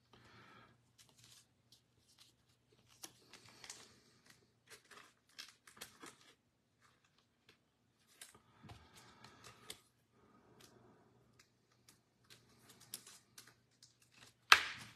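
Trading cards, plastic card holders and pack wrappers being handled: scattered light clicks, rustles and crinkles, with one loud sharp crackle near the end.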